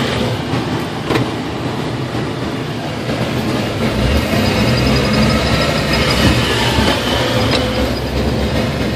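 Steady rumble of a moving vehicle heard from on board, with a couple of sharp clicks, one about a second in and one near the end.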